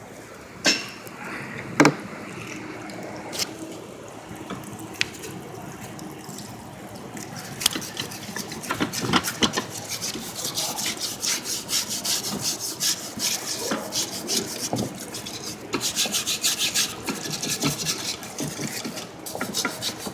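Scrubbing grime and oil sludge off engine parts with quick back-and-forth rubbing strokes. There are a couple of sharp knocks in the first two seconds, and the strokes grow louder and quicker from about halfway through.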